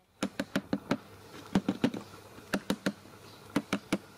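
A run of short, sharp clicks in small clusters of three or four, with a cluster about every second.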